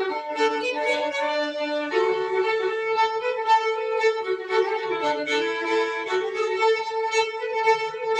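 Instrumental break in a song: a fiddle plays a melody of long held notes, often two at once, over a steady rhythmic accompaniment.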